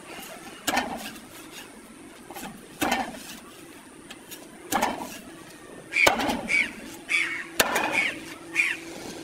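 Large curved knife chopping through a silver carp into steaks on a chopping block: about five sharp chops, one every two seconds or so.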